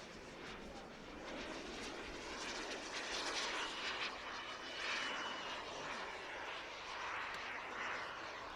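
Small gas turbine on a radio-controlled Swift scale glider running as the model flies its aerobatics. The rushing sound swells and fades as the model passes, loudest a few seconds in, with a faint thin whine.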